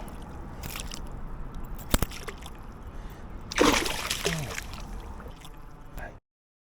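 River water sloshing and trickling close to the microphone, with a sharp click about two seconds in and a louder splash about three and a half seconds in. The sound cuts off abruptly about six seconds in.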